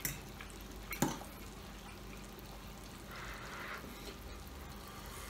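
Quiet mukbang eating sounds over a steady low hum: a click right at the start and another about a second in, then a short soft slurp about three seconds in as he leans over a bowl of beef noodle soup.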